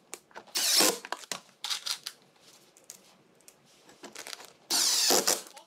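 Cordless impact driver driving screws into a wooden backing bracket in two short bursts, about a second in and again near the end, with softer handling noises between.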